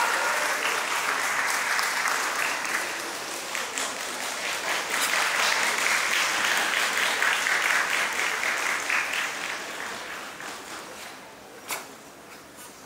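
Audience applauding steadily, fading away about ten seconds in. Near the end, a single sharp snap.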